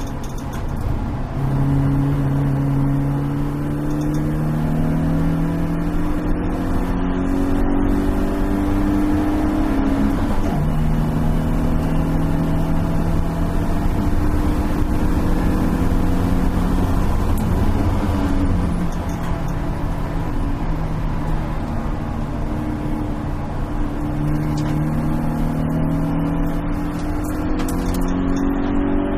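BMW E36 318is race car's stock four-cylinder engine, heard from inside the stripped cabin, pulling hard under acceleration with its pitch climbing slowly through long gear pulls. About a third of the way in, the pitch drops sharply at an upshift and then climbs again. Past the middle it eases off for a few seconds, then pulls and rises again near the end, over steady road and wind noise.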